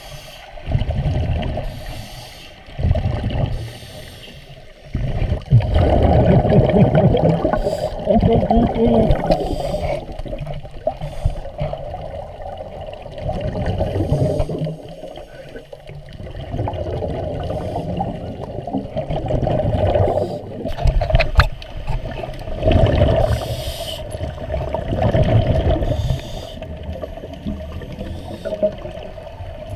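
Scuba regulator breathing heard underwater through a camera housing: muffled rushes of exhaled bubbles recurring every few seconds, with a low rumble between.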